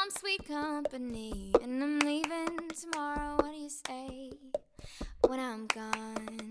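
A solo singing voice, unaccompanied, gliding between notes and holding a long steady note near the end, with scattered sharp taps or clicks around it.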